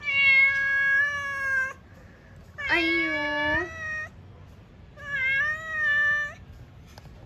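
Domestic cat meowing three times, each meow long and drawn out, about a second and a half.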